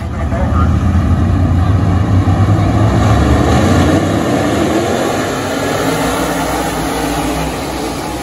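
A pack of USRA Modified dirt-track race cars with V8 engines running together as a loud, dense engine roar. It is loudest in the first few seconds and eases slightly near the end as the field passes.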